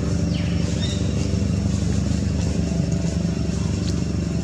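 Steady low engine hum at an even pitch, with a few faint high chirps above it.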